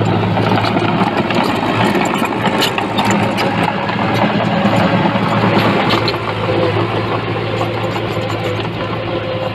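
A construction machine's diesel engine running steadily, with continuous metallic clatter and a few sharp knocks about two to three seconds in. The level eases slightly about six seconds in.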